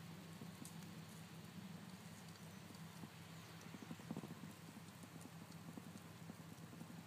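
Groundhog chomping on grass: faint, quick, rhythmic chewing crunches, a little louder about four seconds in.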